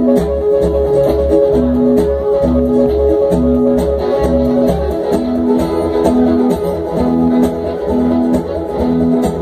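Live bluegrass string band playing an instrumental passage: acoustic guitars and other picked strings over the steady plucked beat of an upright bass.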